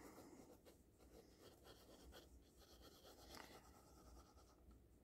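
Near silence with faint rustling and light taps of paper being handled and slid into place on a work surface.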